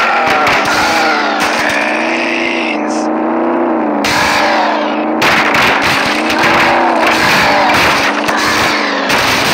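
Racing video game car engine revving under acceleration, its pitch climbing and then dropping again several times as it shifts gears.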